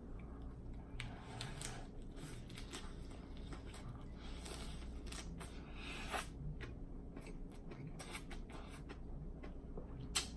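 Quiet, close-up chewing and lip smacking of a lettuce wrap filled with spicy fire noodles: a steady run of short wet clicks and crunches.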